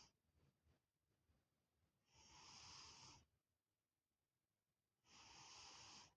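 A sleeping lynx snoring: one breath ending right at the start, then two breathy snores about a second long, roughly three seconds apart.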